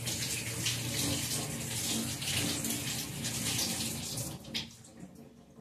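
Kitchen tap running as tomatoes are rinsed under it. The water shuts off about four and a half seconds in.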